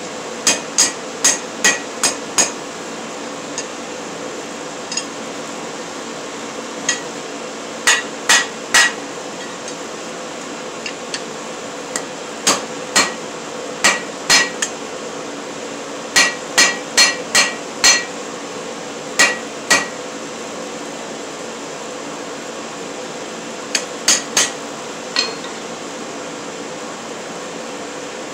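Hand hammer striking a red-hot steel bar on an anvil, each blow ringing briefly. The blows come in bursts of three to six, about two or three a second, with pauses of a few seconds between bursts.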